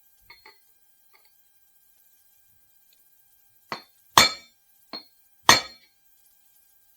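Hammer blows on a bearing race driver, driving a new wheel bearing race into its seat in the hub: a couple of light metal clinks, then four ringing metal strikes about half a second to a second apart, the second and fourth the hardest.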